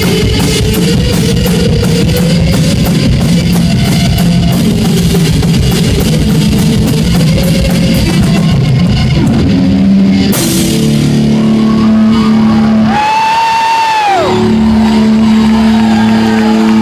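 Live rock duo playing loud: a drum kit pounding under a distorted electric guitar. About ten seconds in, the drumming stops and the guitar rings on in sustained notes, with one note bending up and back down before the chord rings out again.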